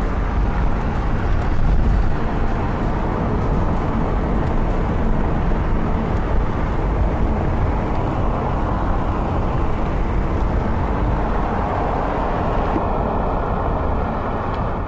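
Steady road and wind noise of a car driving along a country road, heard from inside the car, with a heavy low rumble. A few faint steady tones join near the end.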